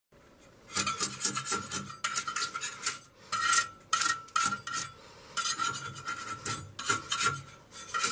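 Sandpaper scrubbed rapidly back and forth over the rusty steel rail of an IKEA SVARTA loft bed frame, rasping the rust off. The strokes start about a second in and come in several quick runs with short breaks.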